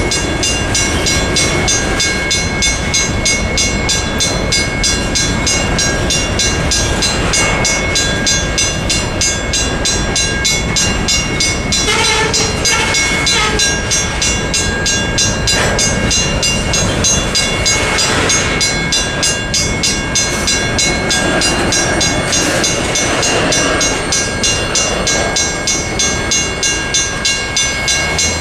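Loaded covered hopper cars of a freight train rolling over a level crossing, with wheel and rail clatter and rumble. Over this, the crossing's WRRS mechanical bell rings on and on in rapid, even strokes, sounding the warning while the train passes. The last car clears the crossing near the end.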